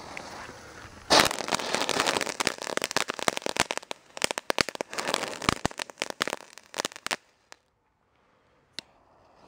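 Several Keller Flashlights, small category 1 youth-firework fountains, burning together: a dense, rapid crackle of sharp pops starts about a second in and cuts off suddenly around seven seconds in, followed by two stray pops.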